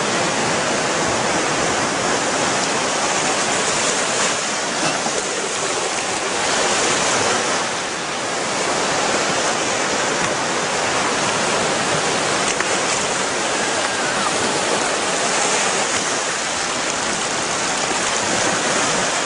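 Shallow water at the shoreline splashing and churning steadily, thick with a dense school of baitfish thrashing at the surface as feeding bluefish drive them in, along with small waves washing on the sand.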